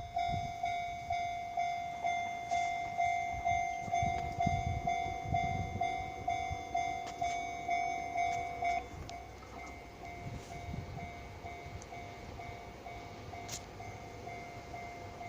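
Japanese level-crossing warning bell ringing steadily, about two clangs a second, signalling that a train is approaching; it turns quieter about nine seconds in.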